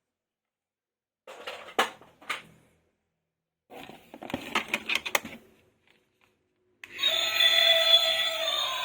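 Two short bursts of clicking and rustling from plastic toys and packaging being handled during an unboxing. Music starts about seven seconds in and carries on.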